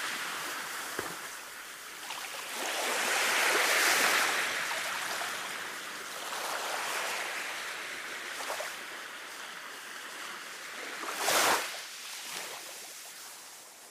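Sea waves washing onto a beach, swelling about three seconds in, with a sharper splash of a breaking wave near the end, then gradually fading down.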